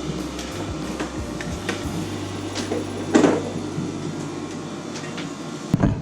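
Scattered knocks and clatter of work inside a boat cabin, with one louder knock about three seconds in, over a steady low hum.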